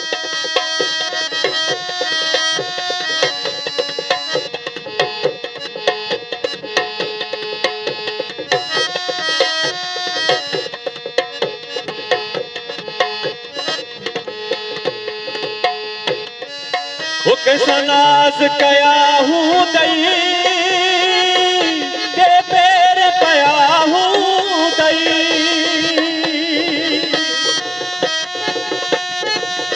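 Sindhi folk music played without words: quick tabla drumming under a sustained melodic accompaniment. A little past halfway a louder lead melody comes in, its pitch wavering and sliding.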